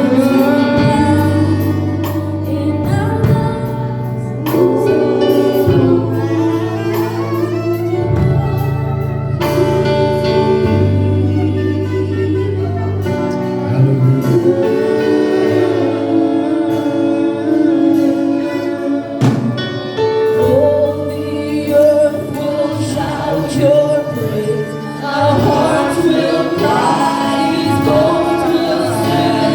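Gospel music with a choir singing over sustained keyboard chords and bass.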